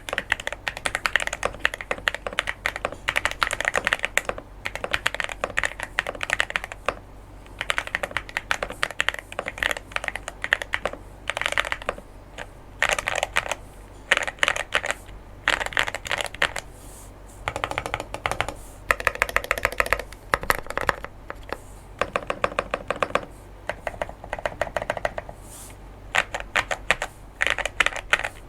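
Typing on a mechanical keyboard with unlubed Akko Pom Pink linear switches under SA keycaps: quick runs of clacky keystrokes with short pauses between them. From about seventeen seconds in, the larger stabilized keys, fitted with Ajazz Diced Fruit Kiwi switches, are pressed instead.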